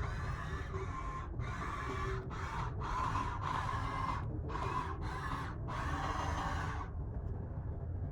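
Electric motors of a radio-controlled model construction machine whirring in short start-stop runs, about eight in a row, then stopping near the end.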